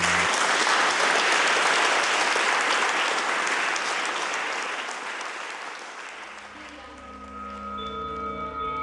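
Audience applauding, the clapping dense at first and dying away over about six seconds. Near the end, soft music with sustained ringing tones comes in.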